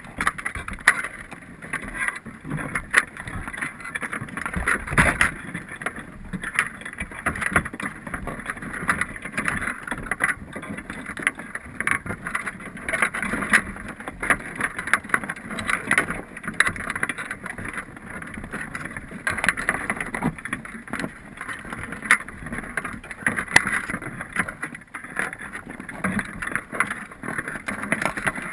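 Underwater sound inside a Dungeness crab pot: irregular clicks and knocks over a steady hiss, with a thin high whine.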